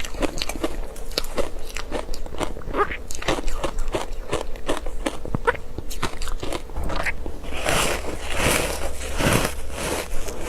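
Pieces of ice covered in matcha being bitten and chewed close to the microphone: a run of sharp crunches and cracks, denser and louder about eight seconds in.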